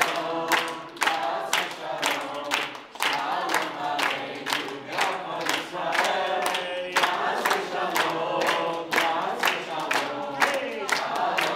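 A group of voices singing together unaccompanied, with steady rhythmic hand-clapping on the beat.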